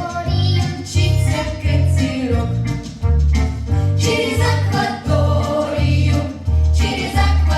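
A song with singing voices over a steady bass beat.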